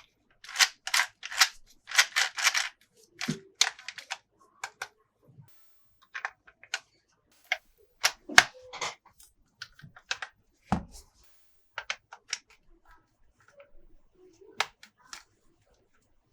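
Hard plastic toy parts and packaging being handled. A quick cluster of rattling clicks and rustles comes in the first three seconds, then scattered sharp clicks and a few dull knocks.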